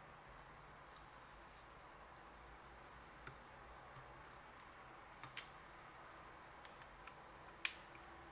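Scattered light clicks and taps from handling the parts of a desoldering gun, with one sharp snap about three-quarters of the way through.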